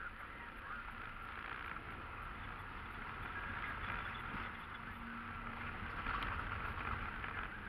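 Car driving slowly along a narrow wet village lane, heard from inside the car: the engine running low under a steady hiss of tyres on the wet road surface.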